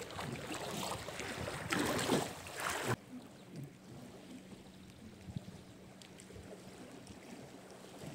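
Rushing noise of wind and lapping water, swelling louder a couple of seconds in, then cutting off abruptly to a quieter background with a faint steady low hum.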